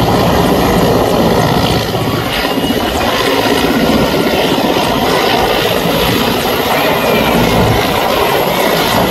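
Mi-17 helicopter hovering close by: the loud, steady chopping of the main rotor over the whine of its turbine engines.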